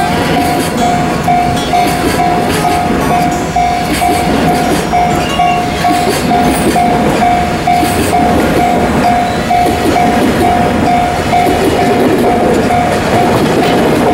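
Container wagons of a freight train rolling past close by, their wheels running and clattering over the rail joints. A bell-like tone pulses about twice a second over the rolling noise, like a level-crossing alarm.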